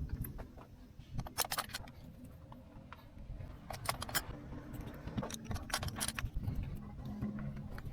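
Small metal objects clinking and jingling in a few short clusters over a low steady rumble, typical of hand tools being handled while changing spark plugs.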